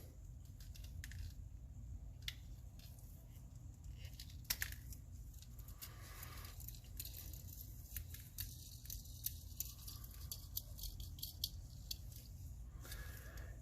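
Faint, scattered light clicks and scrapes of a small diecast toy car and tools being handled, over a low steady hum.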